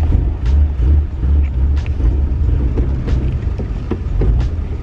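Nissan R31 Skyline's RB30 straight-six running at low speed, heard as a heavy low rumble inside the cabin, with short sharp chirps and clicks every second or so, typical of the mini spool diff making the rear tyres chirp while turning slowly.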